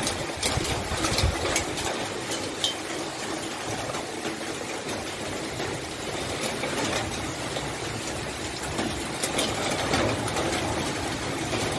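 Heavy rain pouring in a steady hiss, with scattered sharp taps of drops striking close by.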